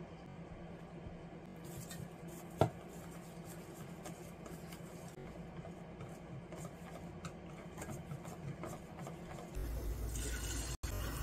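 Wire whisk stirring batter in a stainless steel bowl, with light clicks against the metal and one sharper knock a few seconds in. Near the end, eggplant strips sizzling as they go into hot frying oil.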